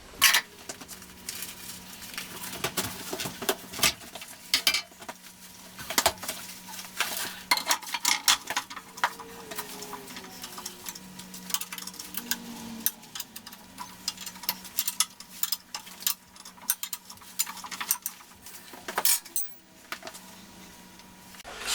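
Steel parts clinking and clanking as a heavy shaft is set into a welding positioner's jaws, with a steady low hum underneath that stops near the end.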